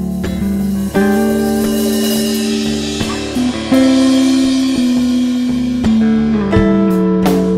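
Background music: held chords that change every second or so, with drum hits coming in near the end.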